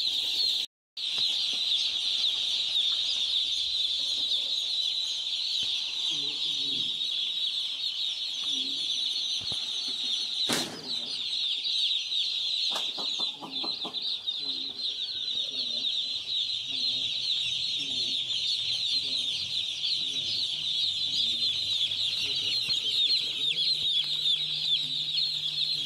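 Hundreds of newly delivered chicks peeping together in a dense, steady, high-pitched chorus. The sound cuts out for a moment just under a second in.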